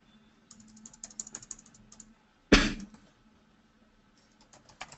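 Computer keyboard keys tapped in two quick runs as a text field is cleared and a new word typed. One short, loud noise falls between the runs, about two and a half seconds in.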